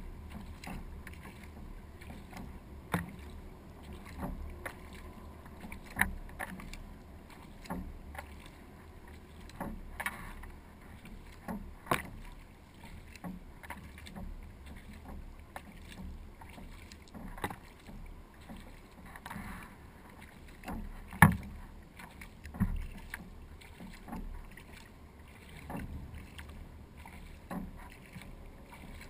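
Kayak paddle strokes in calm water: splashes and drips as the blades dip and lift, with sharp knocks every few seconds, the loudest about two-thirds of the way through.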